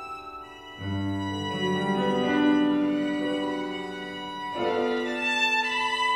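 Solo violin playing long held notes over grand piano accompaniment in a slow classical piece, with the piano's low chords coming in about a second in and changing again a little after four seconds.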